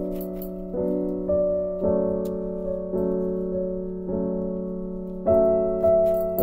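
Background instrumental music: slow, sustained notes, with a new chord or note starting about once a second and a louder one a little past five seconds in.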